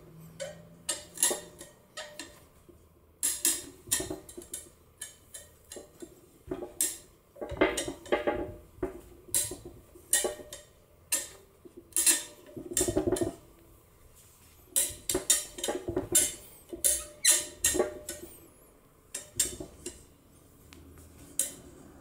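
Hand tools and metal parts clanking and clinking irregularly against an exhaust manifold while seized manifold studs are worked out, with a few quick runs of knocks and a busier stretch near the middle.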